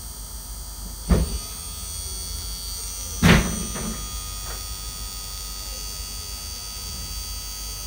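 Small brushed DC motor spinning with no load on a bench power supply's output, a steady electric whine over a low hum, while the supply voltage is turned up. Two loud knocks about one and three seconds in.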